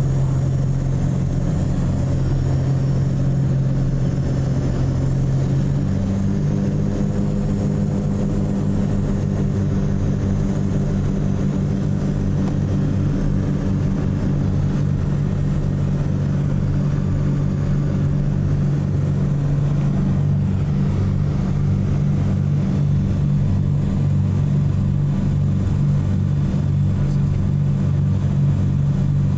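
Cabin drone of a Cessna 421C's twin piston engines and propellers on approach, a steady hum with a few strong tones. About six seconds in the tone changes and more tones join, and it shifts again around twenty seconds, as the engine and propeller settings change.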